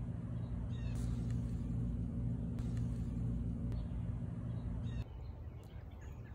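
A steady low mechanical hum with a few faint high chirps and clicks over it. It drops away about five seconds in, leaving quieter outdoor background noise.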